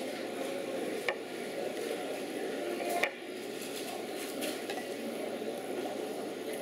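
Steady background din of a restaurant dining room, with two sharp clinks of dishes or tableware, about one second in and about three seconds in.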